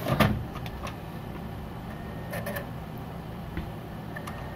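Steady hum of a running desktop computer, with a short knock just after the start and a few faint clicks after it.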